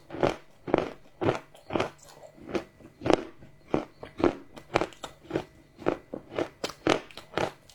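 Close-miked chewing of crunchy chocolate: a steady series of crunches at about two a second.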